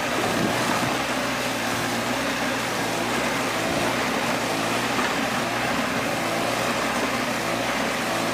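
Small engine running steadily at a constant speed, driving a cassava grating machine.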